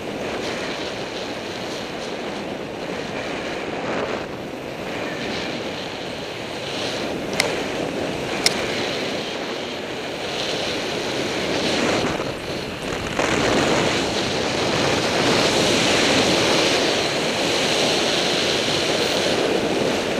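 Wind rushing over a helmet-mounted action camera's microphone, mixed with the hiss of snow under the rider sliding downhill. Two sharp clicks come about a second apart roughly a third of the way in, and the rush grows louder in the last third.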